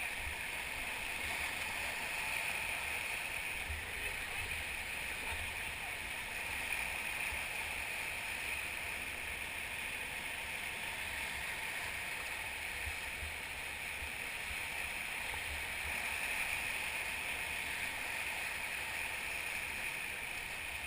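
Steady rushing of whitewater river current around a drifting raft.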